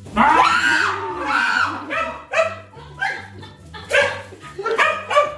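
A woman lets out a loud, long scream, then a small dog barks in a string of short, high yaps, about eight of them in the last three seconds.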